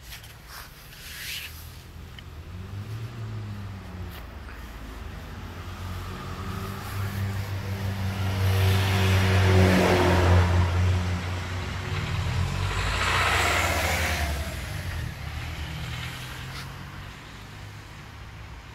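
Motor vehicles passing on the road. One engine hum grows louder to a peak about halfway through, then a second pass with tyre noise comes a few seconds later and fades away.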